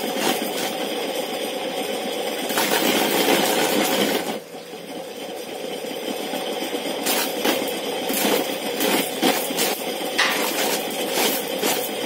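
Homemade corn sheller, a wheel spun by a reused ceiling-fan motor, stripping kernels off a cob pressed against it: a steady grinding rattle with kernels clattering off. About four seconds in it drops away as the cob is lifted off, then the rattling and clicking pick up again as the next cob is pressed on.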